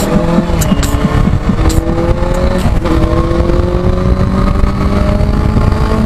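Benelli 600i's inline-four engine pulling hard under acceleration, its pitch climbing steadily and dropping back twice at upshifts, with heavy wind rush on the microphone at speed.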